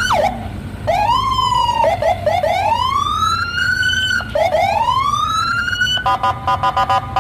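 Indonesian police patrol car's electronic siren sounding in rising and falling sweeps, some quick and some long and drawn out, then switching to a fast pulsing warble about six seconds in, over a low rumble.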